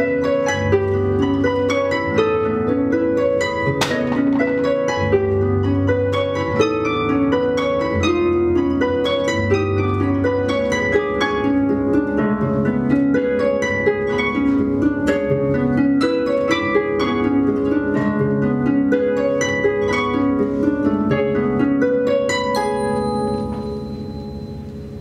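Two concert pedal harps played together: a dense, rapid flow of plucked notes over a repeating low figure. Near the end the playing dies away, leaving a high steady ringing tone.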